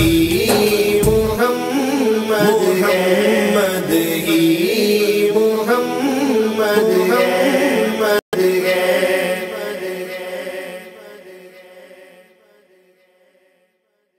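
Layered voices of an Urdu naat chanting without instruments, over a low bass beat that stops about a second and a half in. The voices break off for a split second past the middle, then fade out to silence over the last few seconds.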